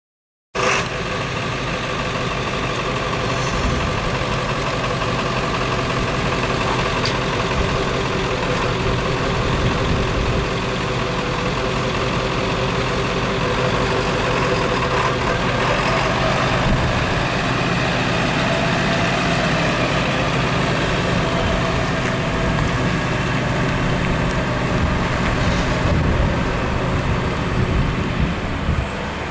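1999 Ford F550 Super Duty's 7.3L V8 diesel engine idling steadily, then driven slowly away. The engine sound starts abruptly about half a second in, and its note changes about halfway through.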